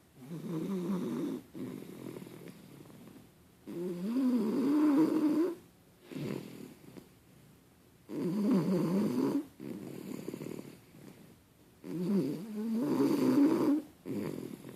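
Snoring in slow, even breaths: four loud snores with a wavering pitch come about every four seconds, each followed by a softer breath out.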